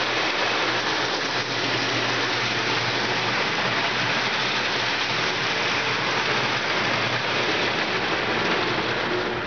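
O-gauge toy trains rolling on three-rail metal track: a steady dense rushing rattle of wheels on rail, with a low steady hum underneath.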